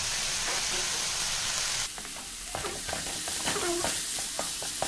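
Chopped vegetables sizzling in hot oil in a wok, with a steady hiss. From about two seconds in, a wooden spatula stirs and scrapes them around the pan, adding short irregular scrapes and clicks.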